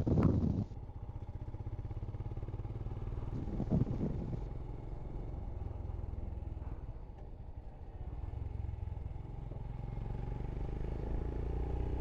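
Royal Enfield Scram 411's single-cylinder engine running at a steady cruise, with wind noise on the helmet microphone. It eases off a little past halfway and picks up again toward the end.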